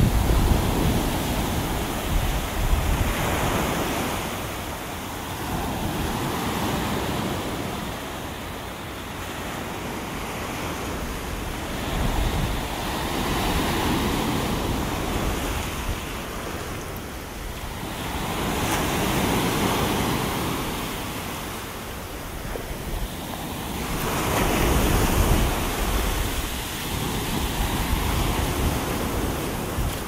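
Gulf of Mexico surf breaking and washing up onto a sandy beach, swelling and fading every few seconds.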